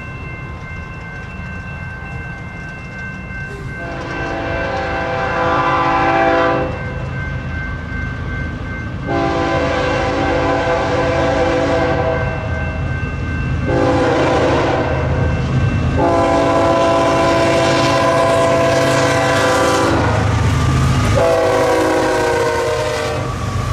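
BNSF diesel freight locomotive's air horn sounding a series of long blasts as it approaches a grade crossing, with the engines' low rumble growing beneath. Steady ringing of the crossing warning bells runs under it.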